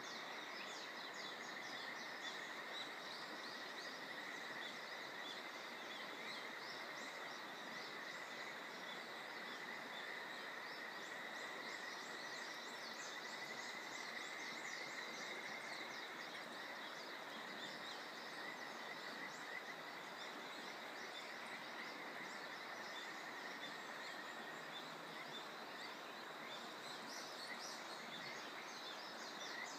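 Kajika frogs (Buergeria buergeri) calling in a steady high chorus while small birds twitter with many short chirps, over a faint continuous background hiss.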